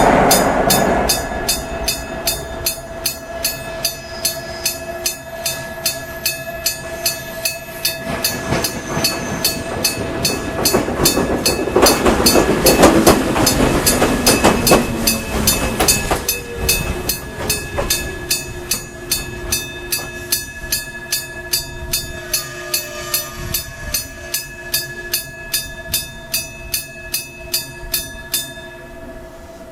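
Japanese railway level-crossing electric gong striking steadily, about one and a half strokes a second, each stroke ringing on. A passing Echizen Railway train swells under it in the middle with a rumble and wheel clatter. The gong stops shortly before the end.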